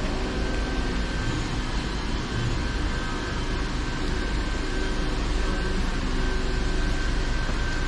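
Steady workshop background noise: an even hum and hiss with a faint steady high tone, like ventilation or machinery running, with no distinct knocks.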